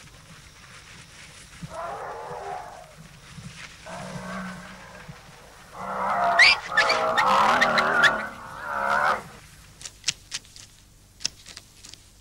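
Cattle mooing: a few drawn-out calls, the loudest and longest stretch in the middle, followed by a few short sharp clicks near the end.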